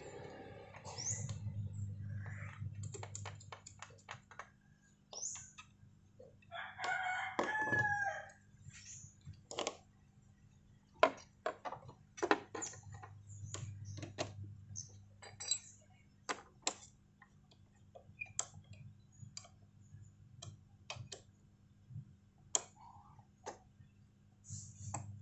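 Sharp metal clicks and clinks at irregular intervals as a motorcycle slip-on exhaust's mounting bracket and clamp are fitted by hand. A rooster crows once about seven seconds in.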